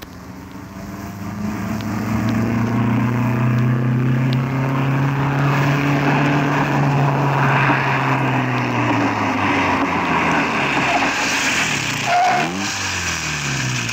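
Car engine sound effect running steadily, fading in at the start. Its pitch winds down near the end as the car slows to a stop.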